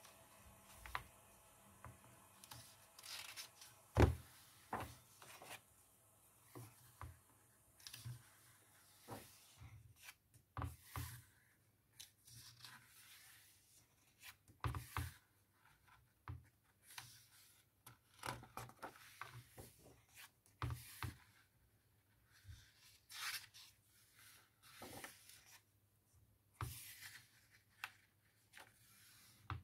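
Paper pages of a small hardcover picture book being turned one after another, with soft rustles, swishes of hands sliding over the paper and light taps, and one louder soft thump about four seconds in.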